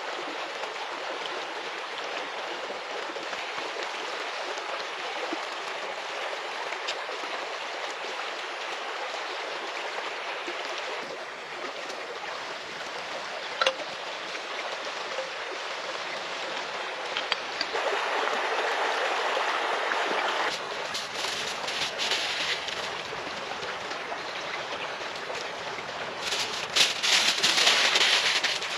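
Steady rushing of a nearby river. Near the end comes a louder burst of aluminium foil crinkling as it is handled.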